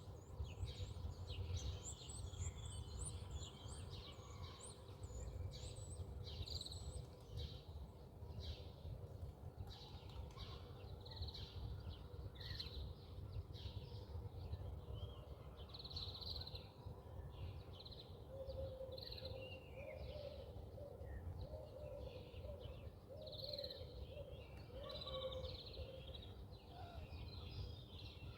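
Birds chirping and calling repeatedly over a steady low rumble, with a run of lower, repeated calls in the second half.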